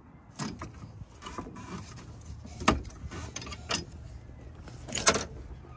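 Metal clicks, clanks and rattles as an Isuzu NPR's engine access cover is lifted and its metal support rod is swung and set, with several sharp knocks, the loudest about five seconds in.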